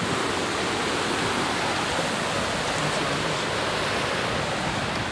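Steady rush of fast-flowing water, an even noise that does not change.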